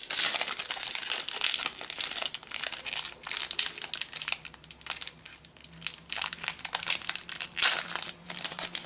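Foil wrapper of a Panini Adrenalyn XL trading-card booster pack crinkling and tearing as it is handled and opened by hand, a dense run of irregular crackles.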